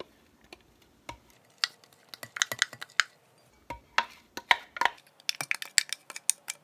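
A clear food-processor bowl tapping and knocking against a glass mixing bowl as shredded carrots are shaken out of it. The taps are irregular, a few at first and then many in quick succession.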